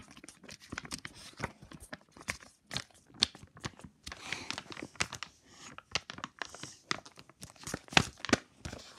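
Paper pages of a comic book flipped back and forth quickly by hand: irregular slaps and rustles of paper, with some rubbing from fingers handling the book close by.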